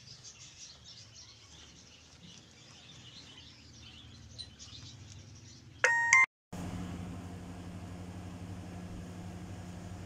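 Faint bird chirping, then a brief loud tone with several pitches about six seconds in. After a sudden cut, a steady low machine hum.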